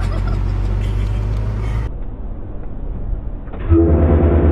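Steady vehicle rumble that cuts off abruptly near the middle. Near the end a loud, steady multi-note blast from a car-mounted train horn starts over a pulsing low hum.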